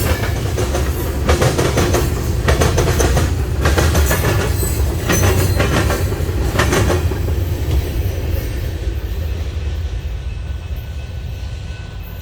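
Freight train cars rolling past, wheels clacking irregularly over rail joints over a steady rumble; the sound fades away over the last few seconds as the train moves off.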